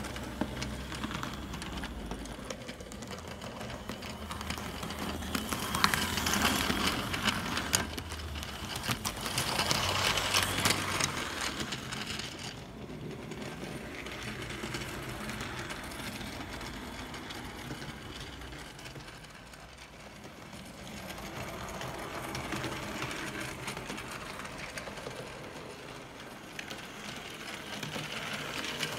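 Hornby OO Peckett W4 model locomotive running, its small electric motor and gears whirring while its wheels and the two wagons click and rattle over the track. It grows louder twice, around six and ten seconds in, and again near the end.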